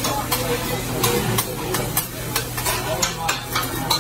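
Metal spatulas clacking and scraping on a teppanyaki griddle in quick, uneven strokes, about three a second, while fried rice sizzles on the hot plate.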